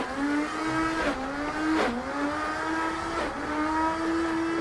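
Electric blender motor at a fruit-juice stall, running steadily at a high hum, its pitch sagging briefly and recovering several times as it blends.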